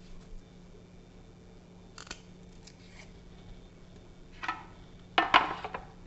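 Drumstick (moringa) pods being peeled and snapped by hand, giving a few short crisp rasps and snaps, the loudest just past five seconds in. A faint steady hum runs underneath.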